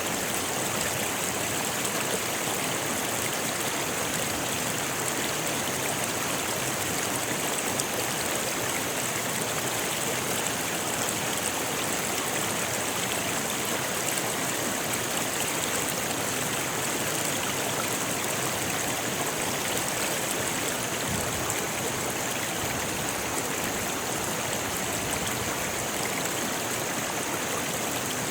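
A rocky river flowing: a steady rush of water over stones, even and unbroken, with a bright hiss from the splashing.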